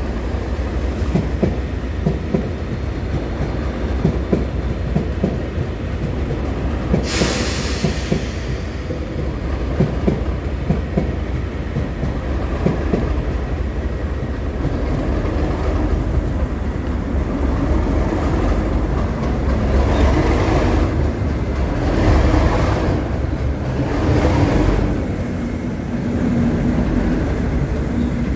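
A diesel train running with a heavy low rumble and continual clattering, a sharp hiss about seven seconds in, and the sound swelling louder several times near the end.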